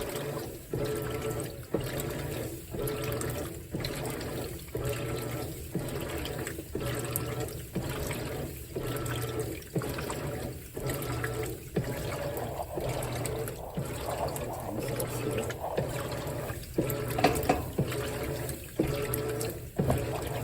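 Whirlpool WTW4815EW1 top-load washer agitating: the single-action agitator strokes back and forth about once a second, churning and sloshing the water in the tub.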